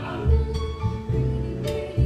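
Live band music: an upright double bass plucking deep notes under sustained keyboard and vocal lines.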